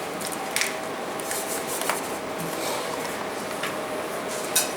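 Steady hum of background noise with a faint constant tone, broken by a few short light scrapes and clicks, about five in all, of hands and tools working in the furnace lining.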